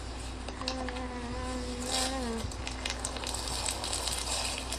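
Crunchy slime being pressed and squeezed by fingers, a dense fine crackling that starts about two seconds in. Before it, a steady droning note that dips in pitch and stops.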